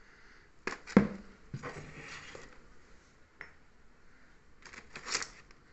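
Medicine bottles and cardboard packets being handled and rummaged through in a cardboard box: a few knocks and clinks, the loudest about a second in, with rustling of packets around two seconds in and again near the end.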